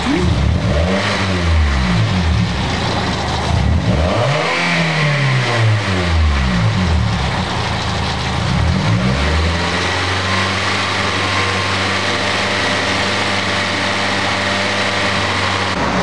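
Toyota Celica's four-cylinder engine revved up and down a few times, then settling to a steady idle about ten seconds in. It is being revved warm to bring on its misfire (code P0354).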